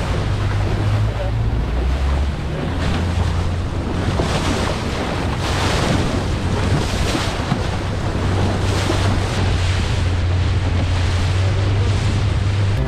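Wind buffeting the microphone over the rush of water and waves around a moving boat, with a steady low hum underneath.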